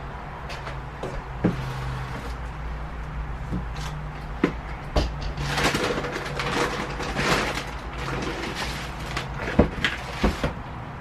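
Someone rummaging for a hammer among tools and drawers: scattered knocks, clicks and rattles, busiest in the middle, over a steady low hum.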